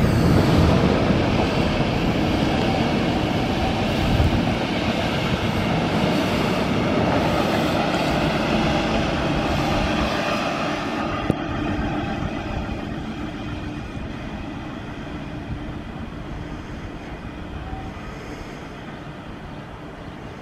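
Locomotive-hauled Alex regional express train with blue-and-white passenger coaches passing close by, a steady rumble of wheels on rail. It is loudest over the first half and fades steadily as the train draws away.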